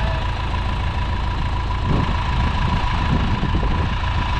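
Forklift tractor's engine idling: a steady low rumble with a thin, constant whine above it.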